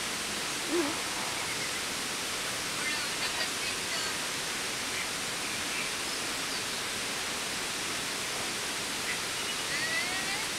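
Steady rushing of a stream, with a few faint bird calls over it.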